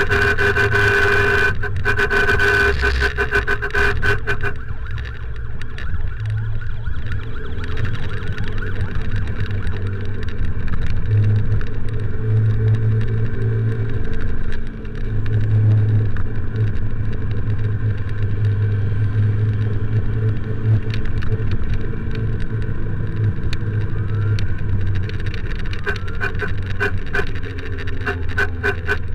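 Motorcycle riding in traffic with a steady low rumble. A horn is held for the first few seconds, and short repeated horn toots come near the end, as the rider clears the way for an ambulance.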